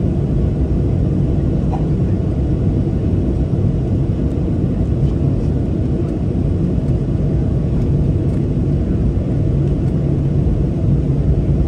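Boeing 737-800's CFM56 jet engines running at taxi power, heard inside the cabin over the wing as a steady low rumble while the airliner taxis.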